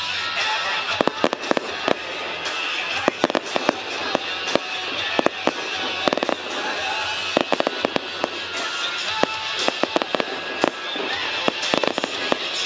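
Fireworks going off: sharp bangs and cracks in quick clusters, some in rapid strings of crackling reports.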